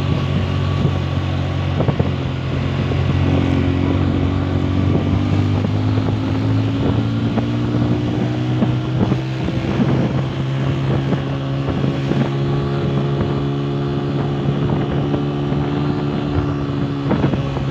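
Motorcycle engine running steadily while riding, its note rising slightly over the first few seconds and then holding, with wind on the microphone and scattered small knocks.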